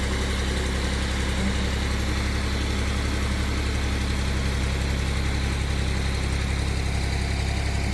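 Excavator engine running steadily at an even pitch, with no change in speed or load.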